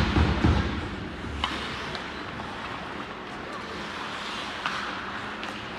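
Game ambience in a sports rink: a steady hubbub of noise with a few faint sharp knocks, after a short run of heavy low thumps in the first second.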